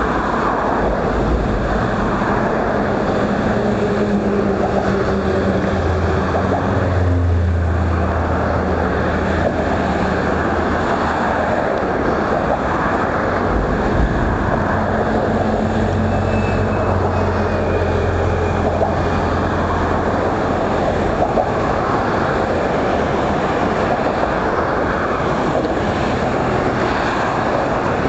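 Steady rushing noise of road traffic on a bridge deck, with a low engine hum that swells between about 6 and 20 seconds in and then fades.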